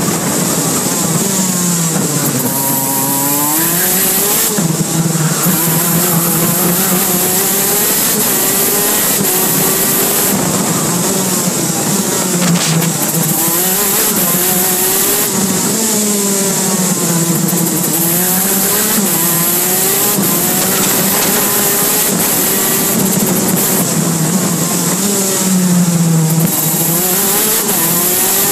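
KZ2 kart's 125cc two-stroke engine at racing speed, heard onboard: the revs fall into each corner and climb again on the way out, several times over.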